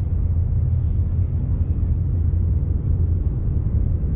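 Wind buffeting the action camera's microphone: a steady low rumble that flutters quickly in loudness.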